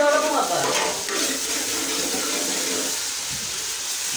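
Chopped ginger sizzling in hot oil in a pan, a steady frying hiss.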